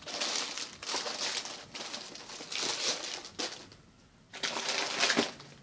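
Clear plastic packaging of children's rain suits crinkling and rustling as the packs are handled and put down, with a brief pause a little past the middle.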